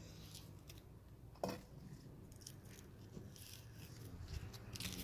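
Faint crackling and small ticks of eggshell being peeled off a boiled egg by hand, with one sharper click about one and a half seconds in.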